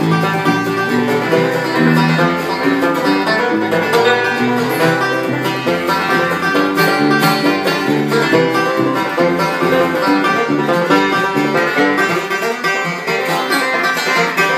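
Bluegrass band playing live, with banjo and acoustic guitar picking a fast, busy run of notes and no singing.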